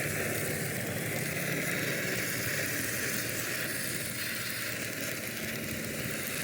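A machine running steadily, with an even hiss over a faint low hum.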